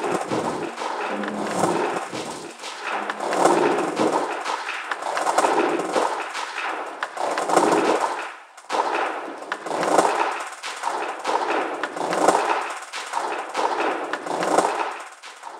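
Layered loops of processed field recordings played on a sampler, a dense crackling texture with clicks, swelling and falling about once a second. It drops out briefly a little past halfway, then fades out near the end.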